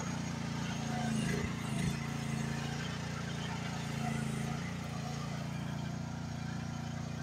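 Engine of an AGT H12 mini excavator running steadily while it digs, with a couple of faint knocks about one and a half seconds in.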